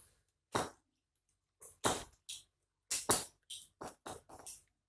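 Short crinkling rustles of plastic squishy packaging being handled, about seven brief bursts with silence between them.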